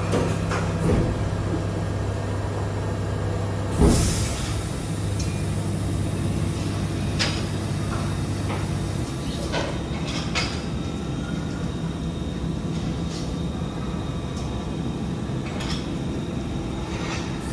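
BYD electric garbage truck's machinery humming steadily, with metal clanks and knocks, the loudest about four seconds in. The hum stops about nine seconds in, leaving only the scattered knocks.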